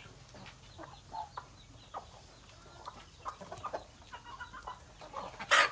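A flock of chickens clucking while they feed, many short scattered calls. A loud, brief rush of noise comes near the end.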